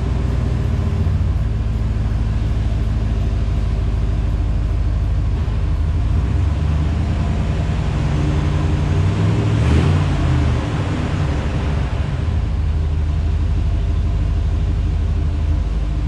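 GM 7.4 L Vortec (L29) big-block V8 running steadily, fitted with new FAST 36 lb/hr injectors and a new fuel pressure regulator. Its engine speed rises and falls back once, about ten seconds in.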